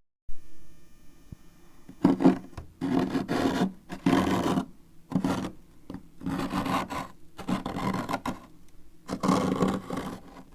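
A spoon scraping frost off a freezer door. There is a short pause at the start, then about seven separate scraping strokes from about two seconds in, each lasting around half a second to a second.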